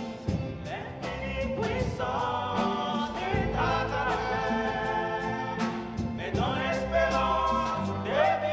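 Live gospel song: a woman singing lead into a microphone with other voices joining, over a band of electric guitar and drum kit keeping a steady beat.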